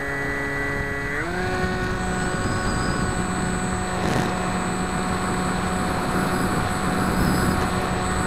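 Bixler 2 model plane's electric motor and pusher propeller whining steadily under a rush of wind noise on the onboard microphone. The pitch steps up about a second in, then holds steady.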